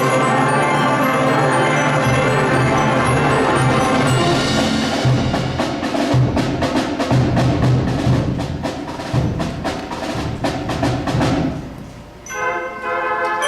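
High school concert band playing a Christmas arrangement with bells and percussion: full sustained chords, then from about five seconds in a run of short accented hits. Near the end it drops back to a few separate ringing pitched notes.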